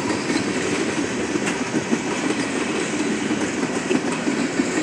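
Freight train of tank cars rolling past close by: a steady rumble and clatter of steel wheels on the rails.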